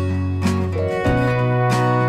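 Background music: acoustic guitar strumming a steady, tuneful accompaniment.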